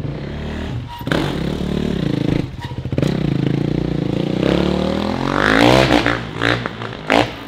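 Kawasaki KX450F dirt bike's single-cylinder four-stroke engine revving hard as it rides off, its pitch climbing and dropping with each gear change and easing off near the end. A short sharp knock is heard near the end.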